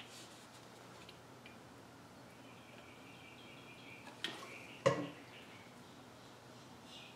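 Quiet handling of a small plastic funnel and fuel bottle at a tiny model engine's fuel tank, with two light knocks about four and five seconds in, the second the louder. Faint bird chirps in the background.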